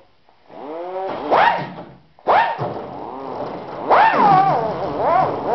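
Handheld rotary tool (Dremel type) cutting out briefly, then spinning back up with a rising whine. Its pitch wavers up and down as it is worked slowly against a rough edge to knock it down.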